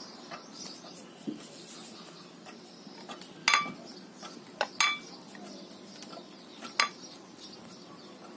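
An iguana eating banana off a ceramic plate: its jaws and snout knock against the plate in a few sharp, ringing clinks spread over several seconds.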